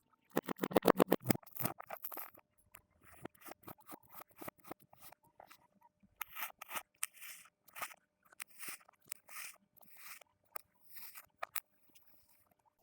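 Kinetic sand crunching and crackling as it is cut, with a dense run of rapid crackles in the first two seconds, then scattered short crunches.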